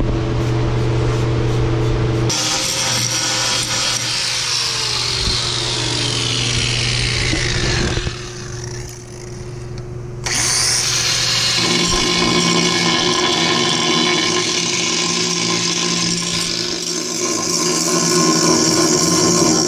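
Electric angle grinder running against steel plate, a loud whine whose pitch sinks under load for several seconds. It drops away briefly about eight seconds in, then picks up again about ten seconds in and grinds steadily. A steady hum sits under the first couple of seconds.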